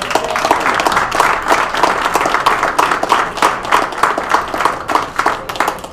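A small group of people applauding, many hands clapping in a dense, irregular patter.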